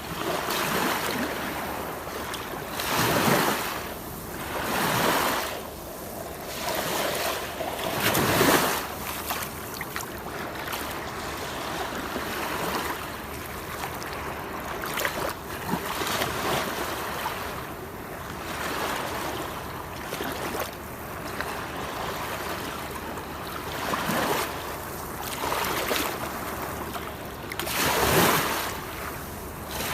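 Waterfall: a continuous rush of falling water that swells into louder surges every few seconds.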